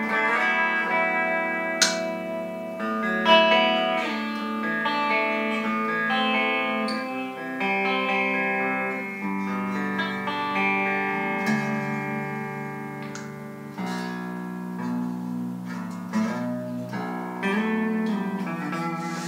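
Chapman ML7 seven-string electric guitar played on a clean amp tone: picked notes and chords ringing and overlapping, changing every second or two.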